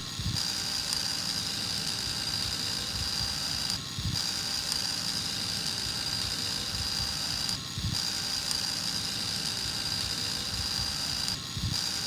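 Small electric motor of a homemade electric lawnmower running with a steady high whine, briefly dipping about every four seconds.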